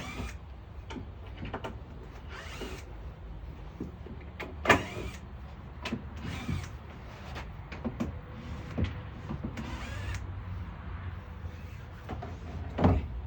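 Power drill driving and backing out screws in a plywood van subfloor in several short runs, with a few sharp knocks in between.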